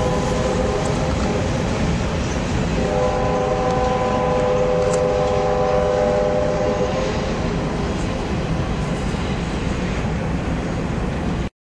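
Freight train rolling past with a steady rumble of wheels on rail, while a locomotive horn sounds a held chord from about three seconds in to about seven and a half seconds in, after a shorter one at the start. The sound cuts off suddenly near the end.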